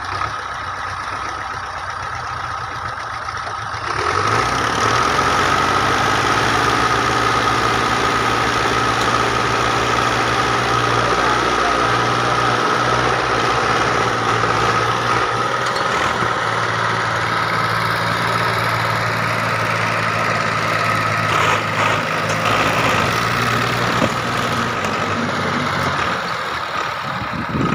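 Farm tractors' diesel engines working under load as one tractor tows the other out of soft dirt on a chain. The engines rev up about four seconds in and hold a loud, steady pull with a high whine on top, then ease off near the end.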